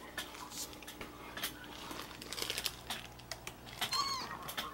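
Scattered light clicks and rustling of things being handled, then near the end a short kitten mew rising and falling in pitch, played back from a kitten video.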